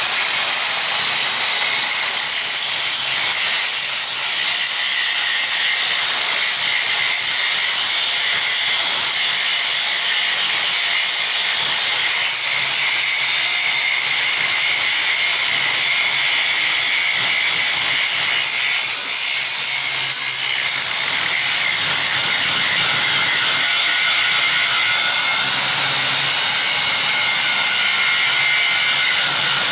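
Electric arc welding of a steel channel onto a bush hog mower frame: a steady, unbroken sizzle with a short dip about 21 seconds in.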